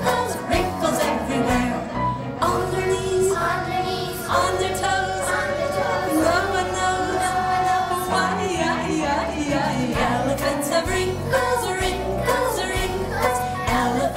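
A children's song playing, with singing over a steady beat.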